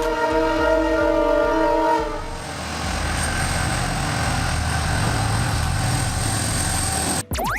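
Freight train's multi-tone horn sounding a long chord that stops about two seconds in, followed by the steady rumble of the train running on the rails with a thin high whine over it, cut off abruptly near the end.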